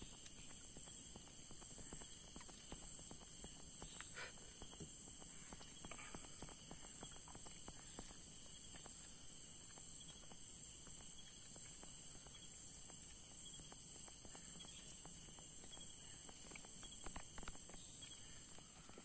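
Night insects, crickets, chirring steadily in several high tones at once, with a faint regular pulse. Over it come soft scattered clicks and rustles as a hook is worked out of a mangrove jack's mouth.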